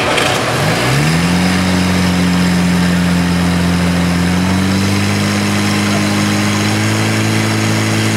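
Portable fire pump engine revving up about a second in, then running steadily at high speed under load with a slight further rise in pitch around halfway through, as it pressurises the hose lines feeding the nozzles.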